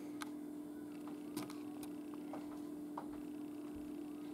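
A steady low hum with a few faint, irregularly spaced clicks over it.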